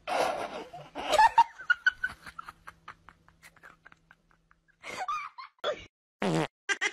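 A person laughing, with a run of short giggles that thin out and stop after a few seconds.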